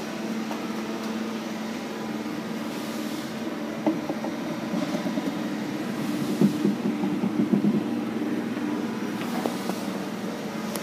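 A ball rolling and rattling down a wall-mounted ball run of wooden chutes and acrylic boxes with red paddles: a rolling rumble with irregular knocks, busiest about halfway through, over a steady low hum.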